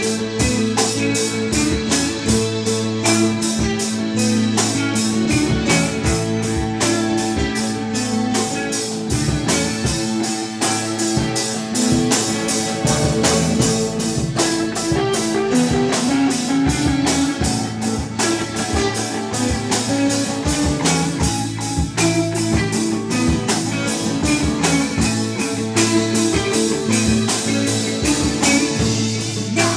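Live rock band playing guitars over a drum kit keeping a steady beat, without vocals.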